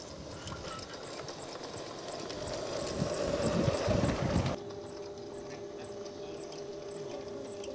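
A garden-railway model diesel locomotive and its wagon running along the track, with a rumble of motor and wheels that grows louder as the train passes close by. About halfway through, a sudden cut brings a quieter, steady motor hum. Faint regular high ticks sound throughout.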